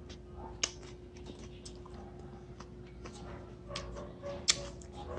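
Close-up chewing of raw bitter gourd: scattered crisp crunches and wet mouth clicks, with two sharper crunches about half a second in and about four and a half seconds in, over a faint steady hum.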